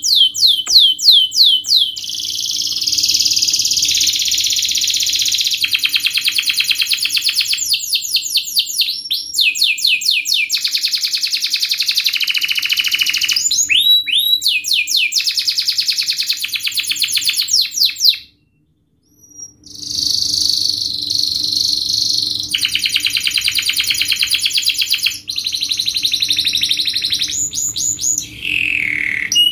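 Domestic canary singing a fast, tightly packed song: long rolls of rapidly repeated notes, phrase after phrase shifting in speed and pitch. About two-thirds of the way through there is a pause of about a second and a half.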